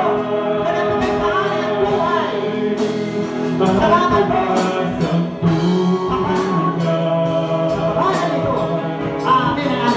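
Live gospel worship music: voices singing over guitar, with repeated percussion strikes.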